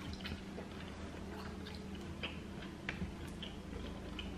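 Quiet eating sounds at a seafood boil: scattered small clicks and taps, as of shells and utensils being handled, with some chewing, over a steady low hum.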